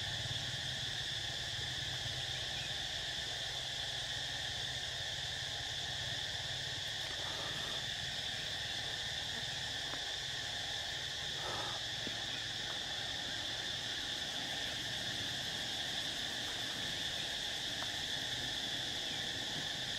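Steady chorus of insects, an unbroken high-pitched buzz that holds at the same level throughout, with a low steady hum underneath.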